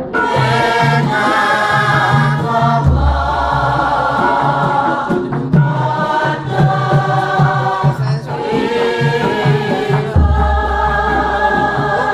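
A chorus of voices singing Javanese tembang (palaran) with gamelan accompaniment. A deep gong stroke sounds and hums about three seconds in, and again near the end.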